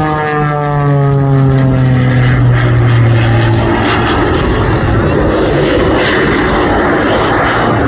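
Aircraft engine passing low overhead, its pitch falling steadily over the first few seconds as it goes by, then fading into a broad rushing noise.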